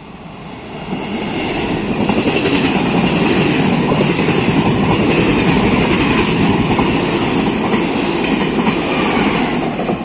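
Trenitalia passenger train with carriages running close past the platform. The noise grows over the first two seconds and then stays loud and steady as the coaches go by at speed.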